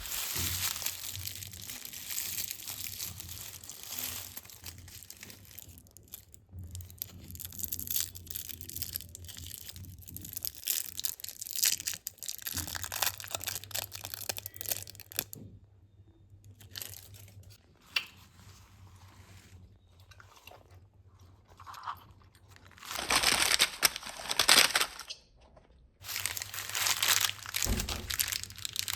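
Candy wrappers on 100 Grand bars crinkling and crackling as the bars are handled and unwrapped. The sound comes in uneven bursts with short pauses, and is loudest a little past two thirds of the way through.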